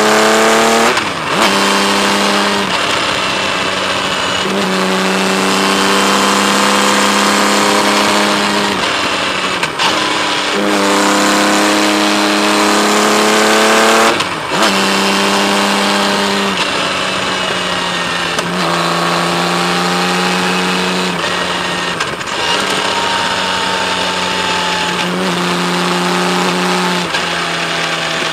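Kawasaki Z1300's six-cylinder engine heard from on board while riding, pulling steadily with its pitch holding or slowly climbing. The pitch steps down at several gear changes, each with a short lift of the throttle.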